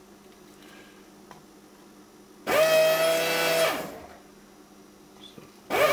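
Vacuum pump of a Pace desoldering station running in a burst of about a second, a steady motor whine with a strong pitch, as the desoldering gun sucks molten solder off a circuit board's pads. A second burst starts right at the end.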